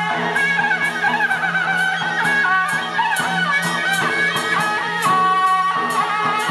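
Taiwanese temple-procession music: a reedy wind instrument plays a wavering melody over a steady drone, with crisp percussion strikes about twice a second.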